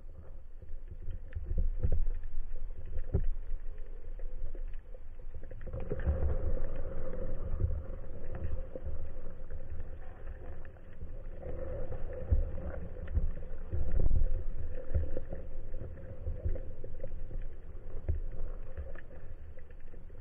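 Underwater ambience picked up by a camera in a waterproof housing mounted on a speargun: low rumbling of water moving against the housing, with scattered clicks and crackles and a faint steady hum that swells twice.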